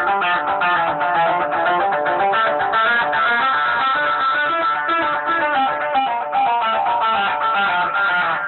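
Fender Stratocaster electric guitar played through a pedal board: a steady stream of quick picked notes.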